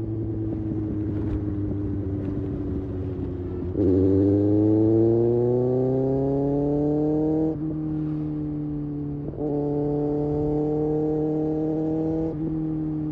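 Kawasaki Ninja ZX-6R's inline-four engine heard on board while riding: the note eases down, then about four seconds in the throttle opens and the pitch climbs for a few seconds, drops briefly, climbs again, and eases off near the end.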